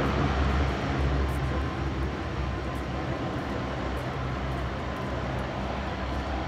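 Lockheed P-3C Orion's four Allison T56 turboprop engines running at low power as the aircraft taxis on the ground: a steady propeller drone with a strong low hum, easing slightly after the first second.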